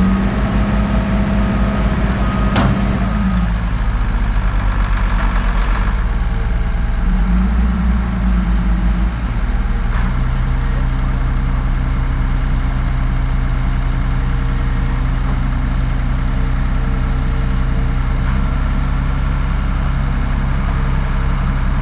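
Heavy diesel engine running steadily while pulling on a chain to drag a stuck baler out of a ditch; its note shifts and settles about ten seconds in. A sharp click sounds about two and a half seconds in.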